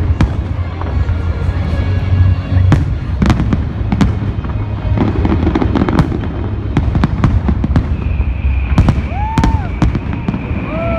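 Fireworks display: aerial shells bursting in a rapid, irregular series of sharp bangs and crackles over a steady low rumble.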